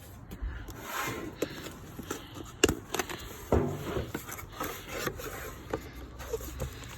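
Packaging being handled during an unboxing: rubbing and scraping with several sharp clicks and knocks, the loudest about halfway through, as the firing-system module is taken out of its box.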